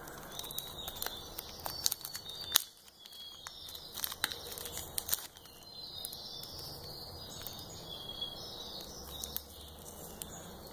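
Fingers handling and opening a small plastic zip-top bag of pigment powder: quiet crinkling of thin plastic with scattered light clicks.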